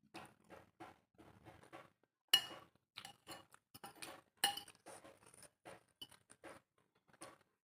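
Eating instant noodle soup: a steady run of short, close-miked chewing sounds, with two louder clinks of cutlery against the bowl about two and four and a half seconds in.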